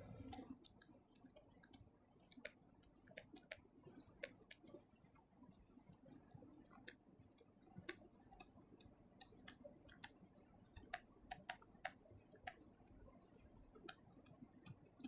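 Near silence broken by faint, irregular light clicks and taps of a pen on a writing surface, a little denser in the second half.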